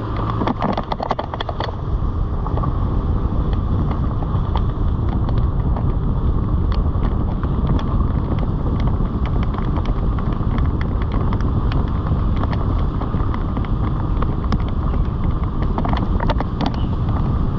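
Loud, steady rumble of wind on the microphone and road noise from a moving vehicle on an unpaved road, with scattered clicks and crackles, most of them near the start and near the end.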